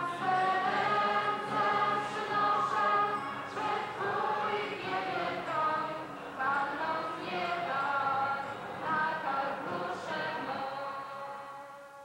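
Choir singing, many voices together, fading out near the end.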